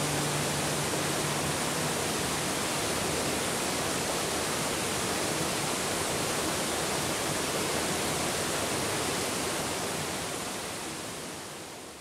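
Mountain stream rushing steadily over rocks, fading out near the end. A low musical tone dies away about a second in.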